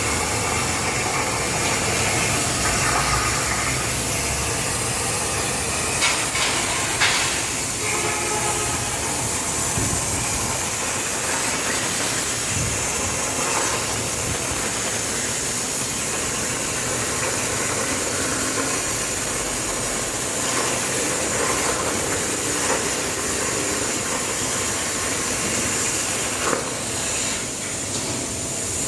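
CNC plasma cutter's torch cutting thin sheet metal: a loud, steady hiss of the plasma arc and its air jet, with a few short clicks.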